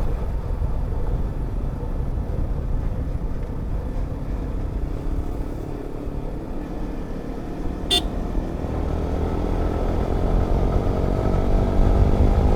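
Motorcycle riding along, its engine running under a heavy low rumble, with the engine pitch rising over the last few seconds as it speeds up. A short horn beep about eight seconds in.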